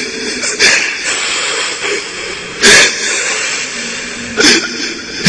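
A Quran reciter's short, sharp breaths into a close microphone, three of them about two seconds apart, over a steady recording hiss.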